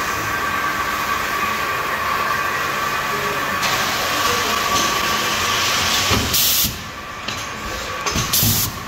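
Multivac packaging machine running: a steady mechanical hum with a constant whining tone, with short hisses a few times, the sharpest about two thirds of the way in and near the end, alongside some low thuds.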